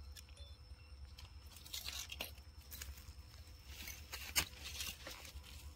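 Faint scattered rustles and crackles of a young macaque picking through leaves and dirt, with one sharper click about four seconds in, over a low steady hum.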